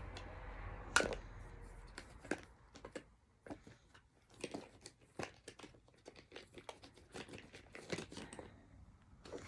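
Irregular light clicks and rustling of small objects being handled, one sharper click about a second in.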